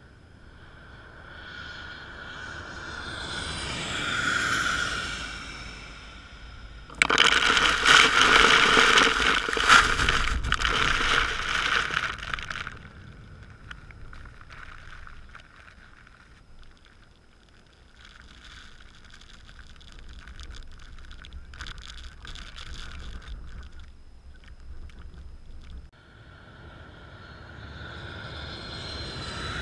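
A fire-fighting air tanker flies low overhead, its engine sound rising to a peak and falling in pitch as it passes. About seven seconds in, the dropped retardant comes down around the microphone as a loud, sudden rushing downpour lasting a few seconds. Near the end, the engine sound of a second tanker grows louder as it approaches.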